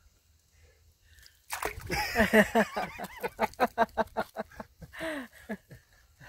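A sudden splash as a frog leaps into a swimming pool about a second and a half in, followed by a few seconds of rapid, rhythmic laughter.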